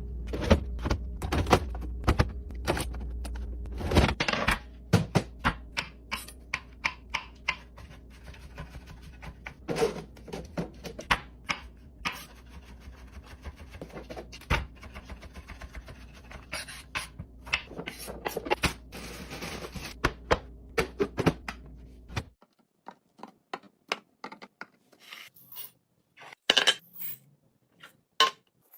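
Rapid clicks, taps and knocks of plastic and glass containers, lids and packaging being handled and set down during a fridge and pantry restock. A steady low hum sits under the first three-quarters and stops abruptly, after which the clicks are sparser.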